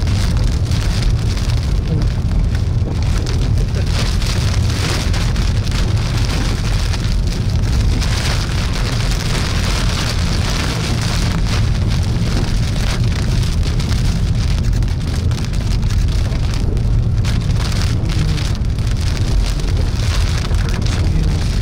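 Heavy rain drumming on a moving car's roof and windshield, over a steady low rumble of road and wind noise.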